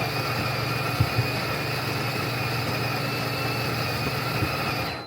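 Built-in conical burr grinder of a Ninja Luxe Café Pro espresso machine grinding coffee beans at grind setting 21, a steady motor whir that cuts off suddenly near the end.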